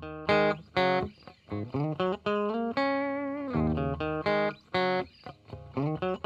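Closing music: a guitar playing a melody of single plucked notes, some of them bending up in pitch.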